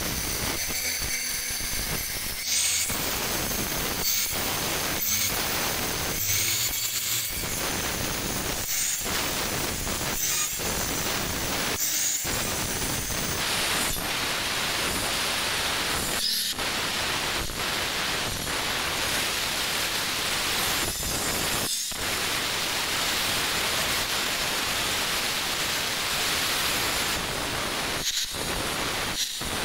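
Handheld electric angle grinders grinding white stone, running steadily with a high whine over a harsh gritty hiss. About halfway through the whine fades and an even rasping hiss takes over, broken by a few brief pauses.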